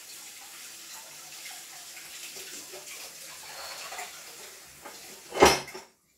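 Tap water running into a basin, a steady splashing hiss, with one loud sudden thump near the end, after which the water sound stops.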